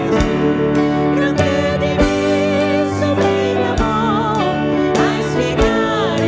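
A woman singing an Italian hymn with vibrato, over instrumental accompaniment with a steady beat.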